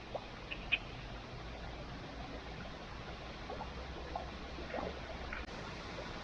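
Wood campfire crackling: a steady hiss with scattered small pops.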